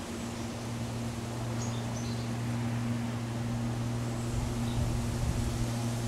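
Steady mechanical hum: a low even drone with a fainter tone above it over a constant hiss. A few faint high chirps come about two seconds in, and some low rumbling bumps come four to five seconds in.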